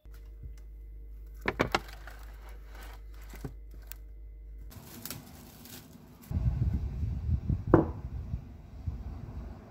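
Steady refrigerator hum while a plastic-wrapped madeleine tray is slid onto a fridge shelf, with a few sharp clicks and knocks. The hum cuts off suddenly. Then comes a stretch of low handling knocks, with one sharp knock near the end, as set chocolate shells are popped out of the madeleine tray.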